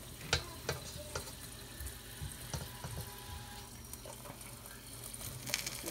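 Butter sizzling softly under a flour tortilla in a frying pan, with a few sharp clicks and taps scattered through, the loudest about a third of a second in.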